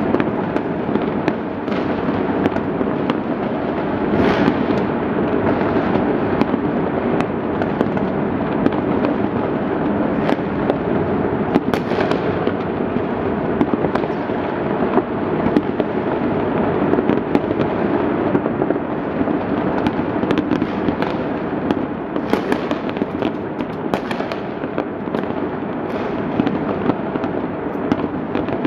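Many fireworks and firecrackers going off at once across a city: an unbroken din of pops and bangs, with sharper individual bangs standing out now and then.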